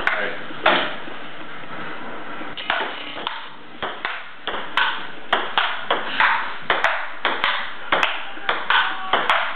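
Table tennis rally: a celluloid ping pong ball clicking back and forth off paddles and the table, a couple of hits early, then a steady run of about three hits a second from under three seconds in.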